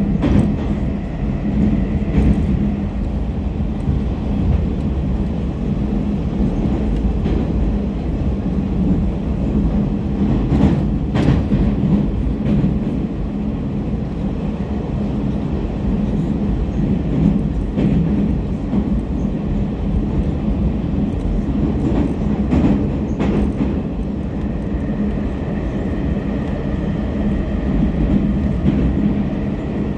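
81-726.1 "Baltiets" metro train running through a tunnel, heard from inside the passenger car: a steady low rumble with occasional sharp clicks. A faint high tone joins near the end.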